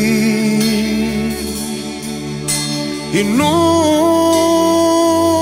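Slow Christian worship song: a singer holds one long note, then slides up to a higher note about three seconds in and holds it, over sustained instrumental chords.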